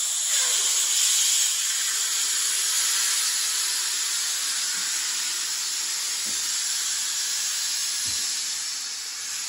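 Steady, loud hiss of compressed air rushing out of a Cadillac hearse's newly installed rear air-ride bags as they are dumped all the way, letting the car drop to the ground. The hiss eases slightly toward the end, with a few faint low knocks from the suspension settling.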